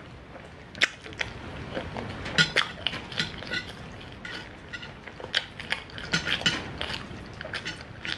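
Irregular small clicks and clinks of cutlery and dishes during a meal.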